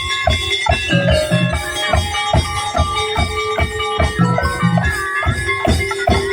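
Tongtek percussion ensemble playing a fast, steady beat on drums and bamboo percussion, with a pitched melody line running over it.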